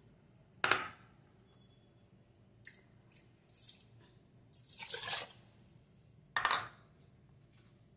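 Water poured from a bowl into an aluminium pressure cooker holding rice and milk: a short splashing pour about five seconds in, with a few brief sharp sounds before and after it.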